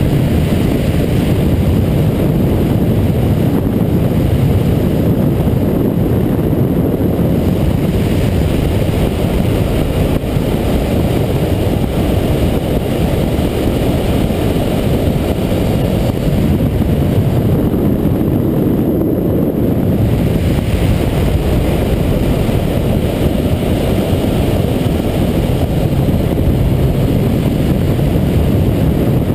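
Steady rush of wind and road noise on a motorcycle-mounted camera at about 140 km/h, with the Yamaha MT-09 Tracer's three-cylinder engine running underneath.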